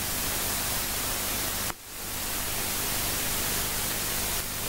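Steady static hiss from an old camcorder recording, broken about a second and a half in by a brief sudden dip where the footage cuts.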